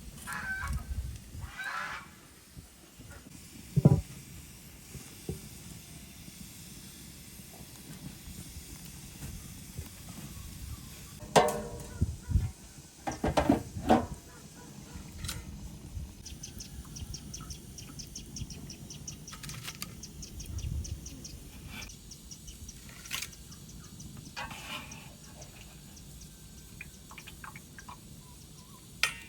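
Occasional knocks and clatters of hands-on cooking work over a faint steady hiss, with birds calling in the background.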